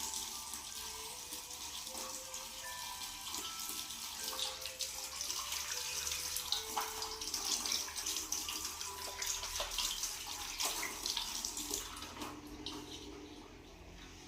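Running, splashing water, with soft scattered musical notes over it, fading down near the end.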